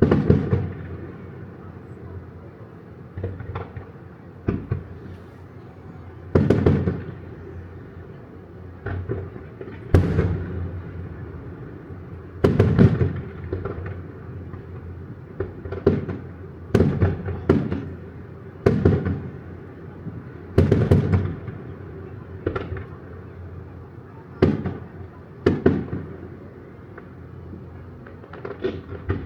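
Aerial fireworks shells bursting one after another, about eighteen sharp booms a second or two apart, each followed by a rolling echo.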